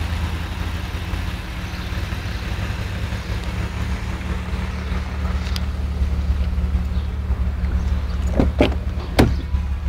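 An old vehicle's engine running steadily with a low hum, with a few sharp clicks near the end.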